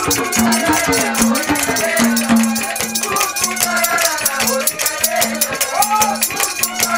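Instrumental interlude of a Haryanvi folk song: a fast, even rattling percussion beat under a wavering melody and a steady, repeated low note.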